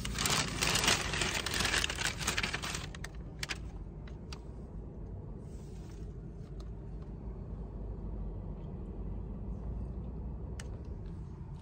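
Steady low rumble inside a car cabin. In the first three seconds there is rustling and scraping with clicks as the phone is handled, then a few separate clicks.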